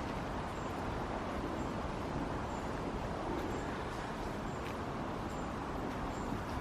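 Steady outdoor background noise, an even hiss and rumble with no clear single source. A faint short high tick repeats about once a second.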